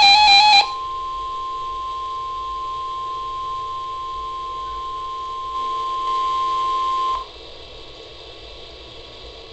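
The tail of a loud warbling alert tone ends under a second in, and a steady single-pitched emergency alert attention tone follows. The steady tone cuts off sharply about seven seconds in, leaving faint hiss.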